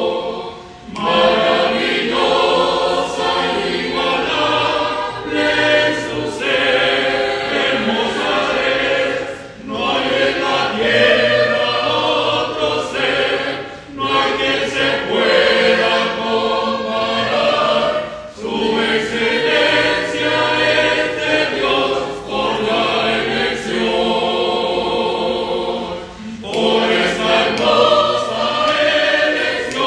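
Church choir singing a hymn in many voices, in phrases of about four seconds with brief pauses between them.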